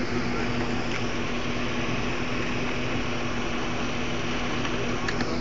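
Steady machine hum: a constant low tone over an even hiss.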